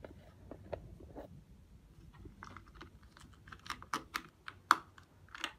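A string of irregular light clicks and taps, sparse at first and then quicker and louder from about halfway through.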